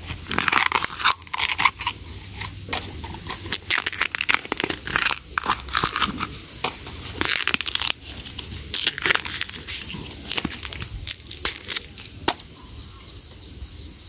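Sheaths of a freshly dug bamboo shoot being torn and peeled off by hand: repeated crackling, tearing crunches, dying down after about twelve seconds.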